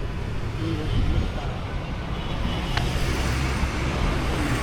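A steady low engine rumble under a wash of background noise, with one brief click near the middle.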